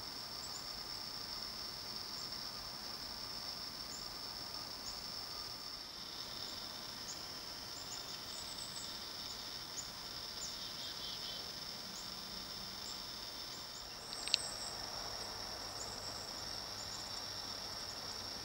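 Field crickets trilling steadily at a high pitch, with scattered faint short chirps and a single sharp click about fourteen seconds in.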